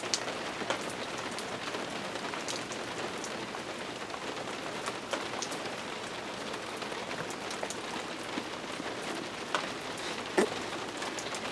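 Steady rain falling, an even hiss with scattered sharper drop hits, one louder hit near the end.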